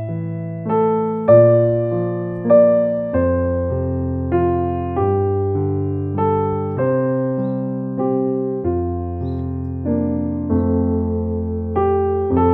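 Background music: a gentle electric piano playing slow chords over a bass line, the notes changing about once a second.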